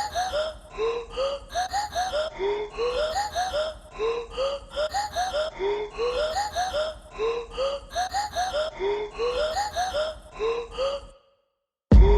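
Background music: an evenly repeating loop of short, rising, gasp-like vocal samples over a steady low bass. It cuts off suddenly near the end.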